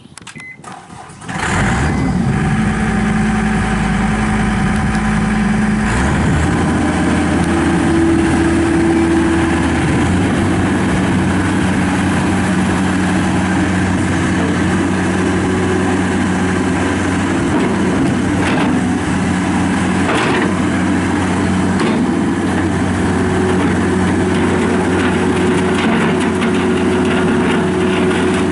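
John Deere CT332 compact track loader's John Deere turbo diesel engine starting about a second in, then running steadily. About six seconds in the engine note changes and settles at a new speed. The seller says it runs with no abnormal noise or blow-by.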